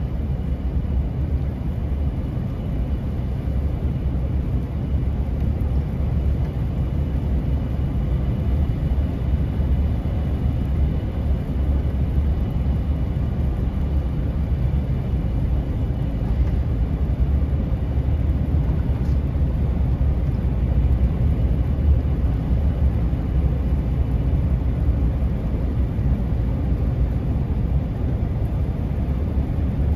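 Heavy lorry loaded with about 27.5 tonnes of bricks rolling downhill: a steady low drone of engine and road noise that holds even throughout.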